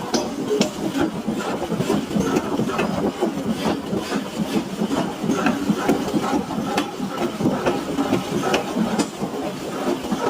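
Heavy workshop machinery running steadily, with frequent irregular clanks and clicks of metal.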